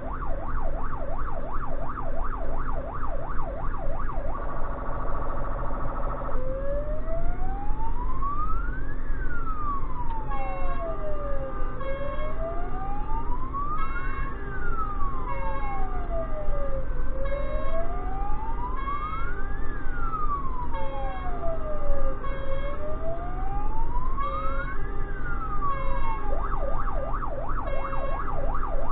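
Electronic siren of an emergency truck, heard from inside its cab over steady engine and road rumble: a fast yelp, then a slow wail rising and falling about every five seconds with short repeated beeps over it, switching back to the fast yelp near the end.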